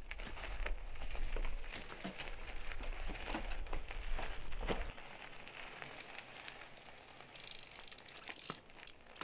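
Mountain bike tyres on icy, gritty pavement: scattered knocks and crackling as the bike hops on its wheels through a trick. A low rumble underneath stops about five seconds in, after which it is quieter, with a brief hiss near the end.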